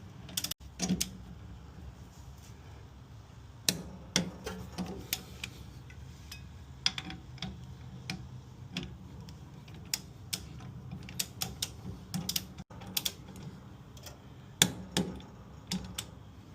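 Ratchet of a torque wrench clicking in short, irregular runs as brake caliper mounting bolts are tightened to 35 ft-lb.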